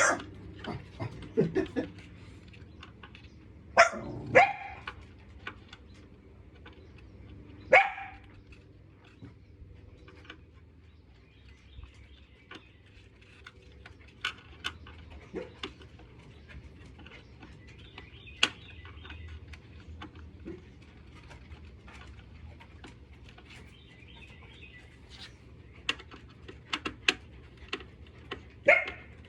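Dog barking in short bursts, several in the first eight seconds and once more near the end, set off by the doorbell being tested. Scattered light clicks and taps sound in the quieter stretch between.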